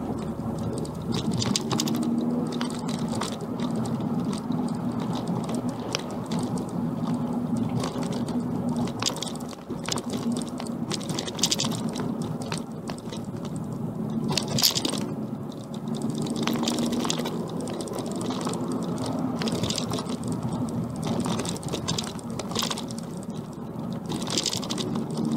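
Inside the cabin of a Vauxhall Astra VXR, its 2.0-litre turbocharged four-cylinder pulling through a Cobra 2.5-inch de-cat front pipe and non-resonated cat-back exhaust, the engine note swelling and easing with the throttle over road noise. A few short hissing bursts come and go, the loudest about fifteen seconds in.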